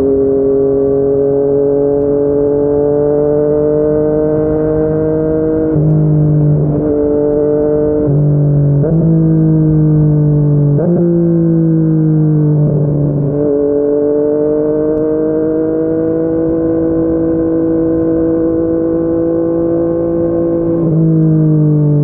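Yamaha MT-09's inline-three engine through a Yoshimura R55 slip-on exhaust, ridden at a steady cruise. The engine note climbs slowly in each gear and is broken several times by sudden steps in pitch as gears change.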